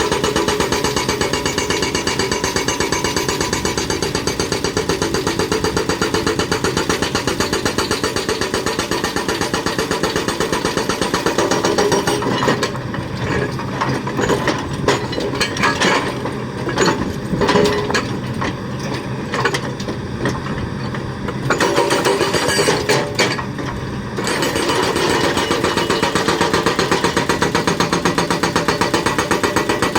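Hydraulic breaker on a Kobelco excavator hammering rapidly and steadily. About twelve seconds in it stops for roughly ten seconds, leaving the excavator's engine running with scattered knocks, then starts hammering again.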